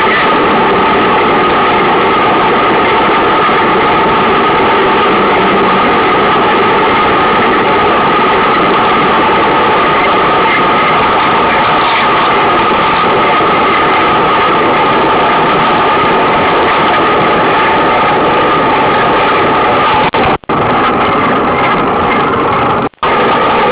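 Steady rolling noise of mountain bikes riding on an asphalt road, with two brief sudden dropouts near the end.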